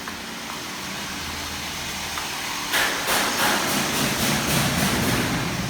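Factory machinery running: a steady low hum. About three seconds in, a louder rushing noise starts with a fast, even pulsing of roughly three to four beats a second.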